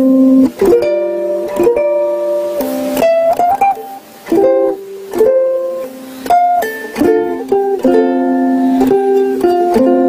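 Ukulele played solo: plucked chords and single melody notes, with short breaks about four and six seconds in.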